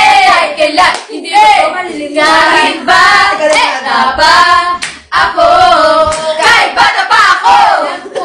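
Several young women singing loudly together in a casual sing-along, with hand claps.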